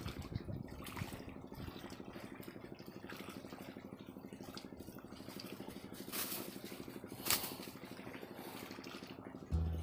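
A small engine running steadily with a low, rapidly pulsing hum. Two sharp knocks come about six and seven seconds in, and music comes in just before the end.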